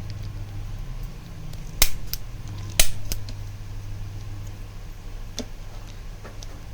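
Biotronix manual stainless-steel chiropractic adjusting gun firing twice: two sharp snaps about a second apart, each followed by a fainter click. A steady low hum runs underneath.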